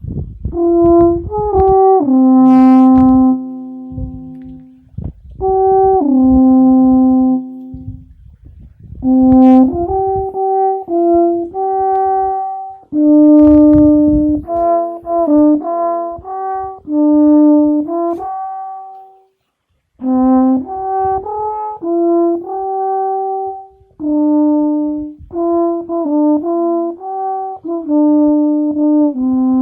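Alphorn playing a slow melody of held and stepped notes in phrases, with short pauses between the phrases.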